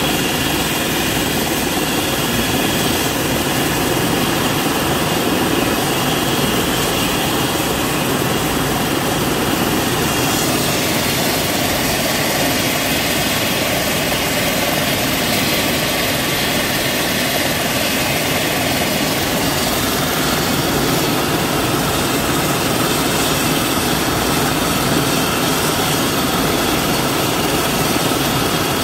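Airbus ACH135 helicopter's twin turbine engines and rotor running steadily: an even, loud rushing noise with a thin high whine over it.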